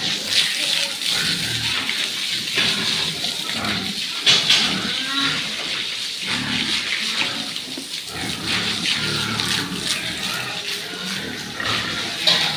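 Pigs grunting in a pen over a steady hiss of running water.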